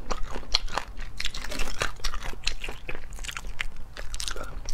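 Crayfish shells being cracked and chewed close to the microphone: a fast, irregular run of sharp crunches and crackles.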